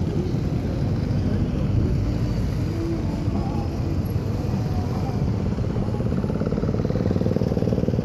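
A procession of motorcycles riding past one after another, several engines running together in a steady low rumble.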